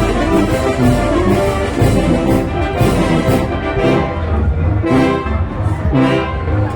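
Mexican banda filarmónica, a brass-and-woodwind band, playing loudly: sustained brass chords over a low bass line, with regular percussion hits.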